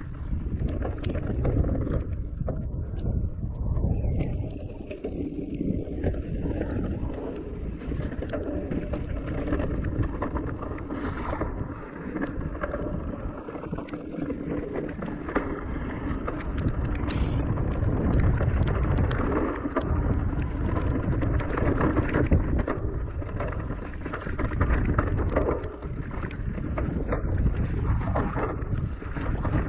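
Electric mountain bike ridden down a rough trail: wind buffeting the microphone and tyres rumbling over the ground, with frequent rattles and knocks from the bike.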